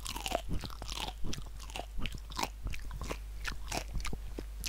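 A person chewing a hot chili pepper close to a headset microphone: repeated sharp crunches, several a second.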